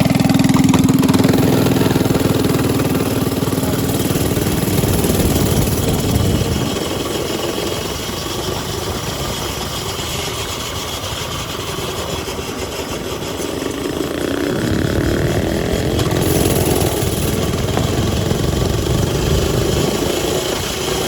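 Mini bike's small gas engine running. It is loudest in the first few seconds, eases off in the middle, and builds again over the last several seconds.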